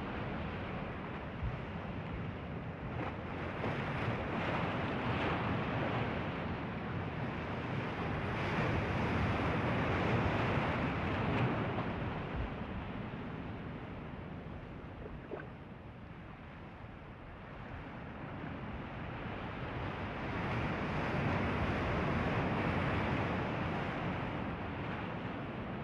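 Ocean surf washing on a beach, a steady rush that swells and fades slowly twice, with some wind on the microphone.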